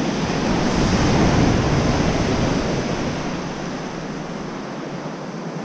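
Small surf breaking and washing up a sandy beach at the water's edge, swelling over the first second or two and then easing off.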